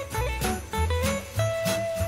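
Christmas song with sleigh bells jingling on a steady beat over a bass line and a melody.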